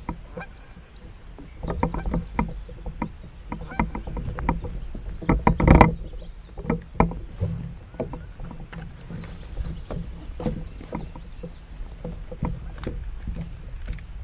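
Irregular knocks and clunks of handling on a kayak, with a low wash of water; the loudest knock comes about six seconds in.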